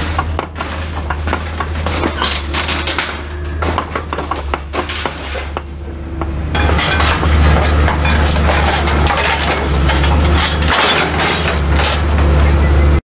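Excavator diesel engine running steadily under the clanking and crunching of scrap metal as a hydraulic sorting grapple grips and drags tangled steel racking and wire. The metal noise gets louder about halfway through, and everything cuts off suddenly near the end.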